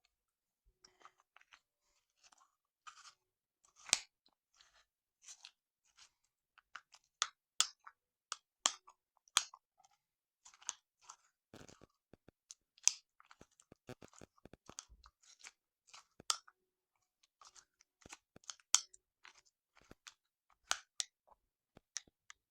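Irregular small clicks and short crunchy scrapes, roughly one or two a second, from a yogurt bowl with nuts being worked with a spoon at close range.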